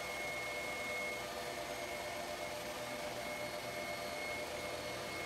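Stel Iron MIG 303SP welding machine and its water cooler idling, a steady whir with a faint high whine and no arc.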